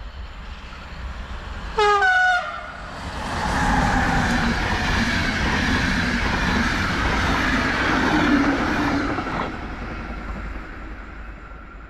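Electric locomotive sounding a short horn blast about two seconds in, then a passenger train passing at speed, its wheels and coaches rushing by for about six seconds before fading away.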